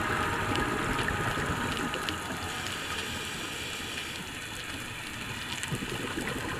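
Steady rushing, water-like noise with faint crackles, easing down in level, while the last faint notes of a music track die away under it.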